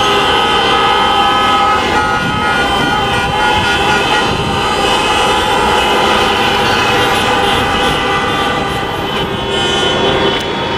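Many car horns sounding at once in a continuous, overlapping din of steady tones, over the rumble of idling traffic: drivers honking in protest.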